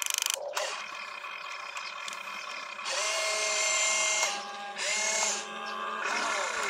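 Small electric motors of a toy RC excavator whining as the arm lifts and the upper body swings, in separate runs of steady pitch. It opens with a short buzzing rattle, and the longest and loudest whine comes about three seconds in, followed by shorter whines at other pitches.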